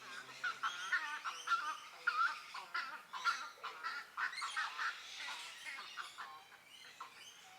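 Many birds calling at once, a dense mix of short squawks, honks and chirps that is busiest for the first six seconds and thins out near the end.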